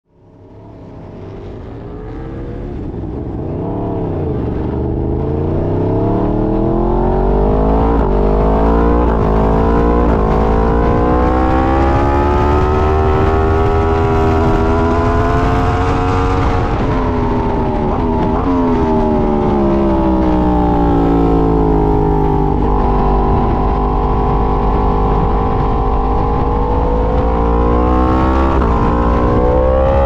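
Yamaha R1's inline-four engine heard onboard at racing speed, its pitch climbing through the gears with quick drops at each change, falling as it brakes for a corner and climbing again on the exit. A steady rush of wind runs underneath, and the sound fades up over the first few seconds.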